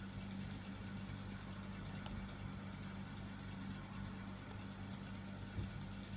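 Hunter Pacific Aurora 2 ceiling fan, running with only two blades, giving a steady low motor hum, with a faint click or two.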